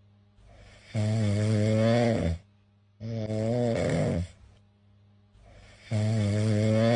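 Domestic cat snoring: three loud, pitched snores about a second and a half long, starting about one, three and six seconds in, with quiet pauses between them.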